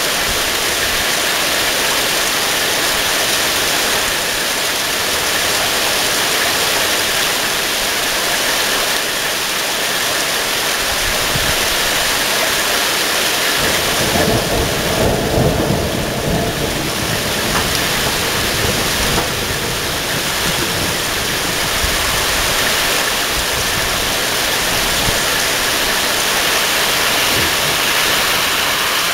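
Rain falling steadily on trees and foliage, with a low rumble of thunder about halfway through.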